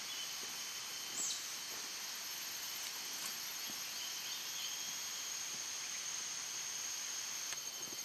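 Steady high-pitched drone of insects calling in the vegetation, with a brief falling chirp about a second in.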